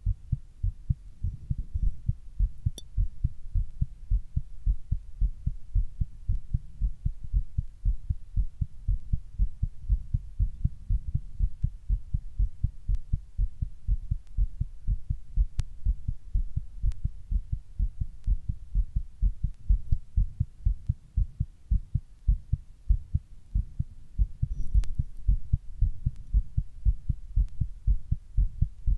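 A human heart beating quickly, heard as a steady run of closely spaced, deep thumps. A few faint clicks sound over it.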